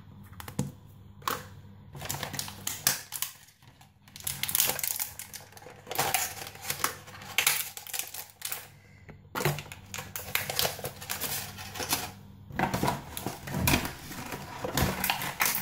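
Small hard plastic toy capsules clicking and knocking together as they are handled and pushed in among toys and packets, with stretches of rustling between the clicks.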